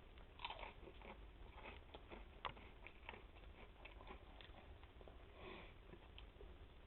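Faint chewing of a hot-sauce-dipped potato chip: a few soft, scattered crunches and mouth clicks, with a sniff.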